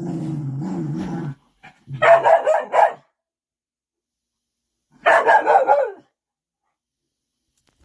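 A dog growls low for about a second and a half, then lets out two quick strings of barks, about two and five seconds in.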